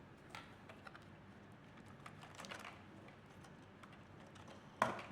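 Light plastic clicks and taps from a Zodiac MX8 suction pool cleaner being handled as its old tracks are pulled off, with one sharper click near the end.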